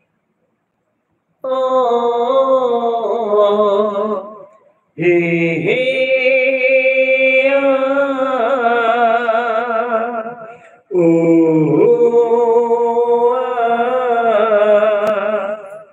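A man singing a wordless melody into a handheld microphone, in three long phrases with held, wavering notes and upward slides between them.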